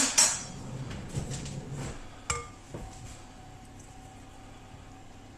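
Kitchen utensils handled around bowls: a short scraping noise at the start, then a few light knocks and one ringing clink about two seconds in, as a skimmer is picked up to skim foam off custard.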